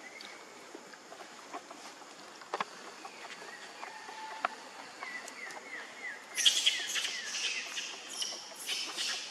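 Newborn macaque squealing in repeated short, high-pitched bursts, starting about six seconds in after a short run of faint chirps.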